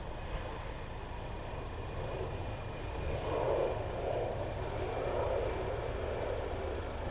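Distant jet airliner engine noise, a steady rumble that grows louder about three seconds in.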